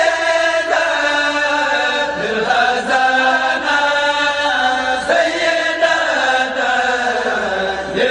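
Devotional chant: a voice singing long, drawn-out melodic phrases, each note held for a second or more before sliding to the next.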